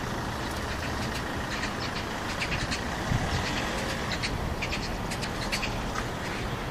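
Steady outdoor rumble of background traffic, with many short, high bird chirps scattered through it.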